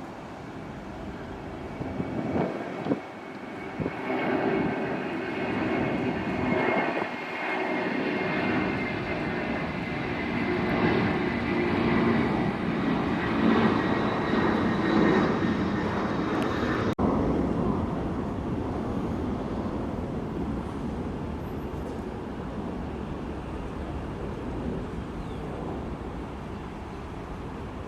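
Jet airliner's engines passing: a rushing engine noise swells up with a high whine that slides slowly down in pitch, is loudest around the middle, and is broken off abruptly about two-thirds in, after which the rumble slowly fades.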